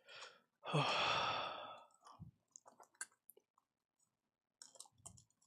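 A man's long sigh about a second in, followed by a scatter of faint clicks and small taps.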